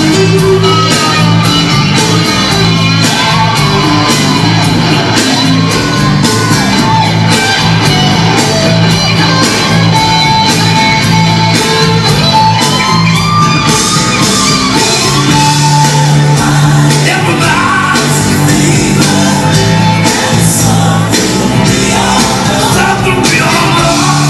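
Loud pop dance track played back in a hall, with a steady beat, a repeating bass line and a singer's vocals, and shouts over it.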